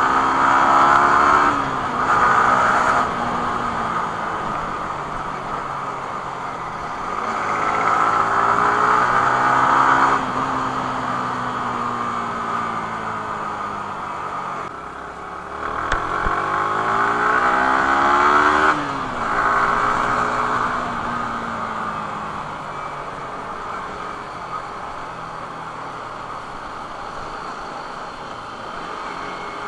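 Yamaha R15 V3's 155 cc single-cylinder four-stroke engine heard from the rider's seat, revving up and easing off through the gears in traffic. It climbs in pitch three times, most strongly about 16 to 19 seconds in, and drops each time the throttle closes. Near the end it settles to a lower, quieter run at low revs.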